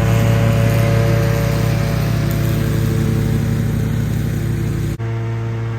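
Riding lawn mower engine running steadily under load while mowing, with a brief dip and a sudden change in the sound about five seconds in.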